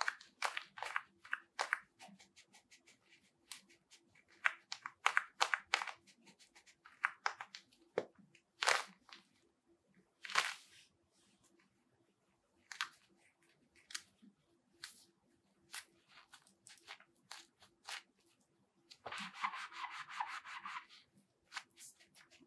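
Nike Vapor Grip 3 goalkeeper gloves being handled: the latex foam palm and fingers are bent, pinched and rubbed, giving an irregular string of short rustles, scrapes and sticky clicks. Near the end comes a longer scratchy rub of about two seconds.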